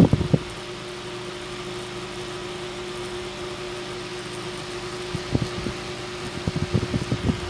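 Small 4-inch Massey electric fan running with a steady buzzing hum over the whir of its blades, a faint electrical buzz taken as a malfunction, the motor over-revving. A few knocks at the very start and more scattered handling knocks near the end.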